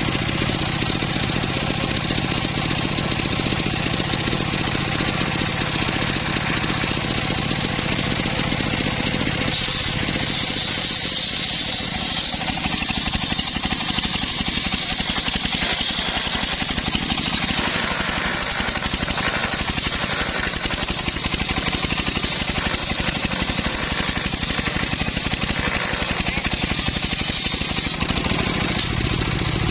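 Engine-driven sawmill saw cutting mahogany, running steadily; from about ten seconds in until near the end the lower engine sound drops back and a higher, brighter sawing sound rises over it.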